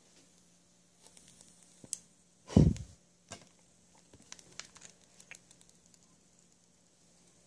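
Hands handling a rebuildable vape atomizer and a piece of cotton wick: scattered small clicks and soft rustling, with one loud, short low thump about two and a half seconds in.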